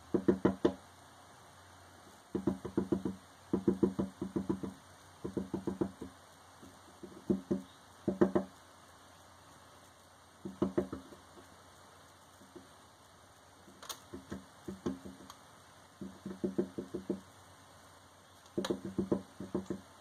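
A tufted titmouse pecking at sunflower seeds on the floor of a clear acrylic window feeder. Its pecks sound as quick runs of hollow taps through the plastic and the window glass, about five to ten taps per run, repeated every second or two.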